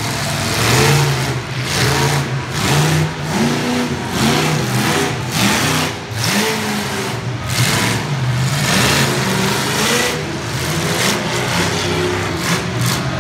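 Monster truck engine revving hard in repeated bursts, its pitch climbing and dropping again about once a second as the truck accelerates and turns on the dirt.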